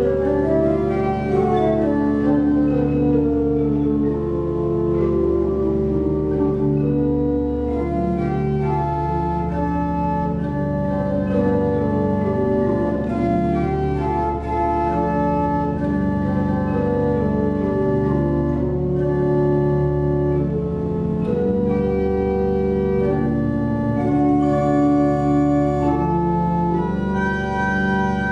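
Pipe organ playing a piece in full chords, the notes changing every half second or so over a held low bass.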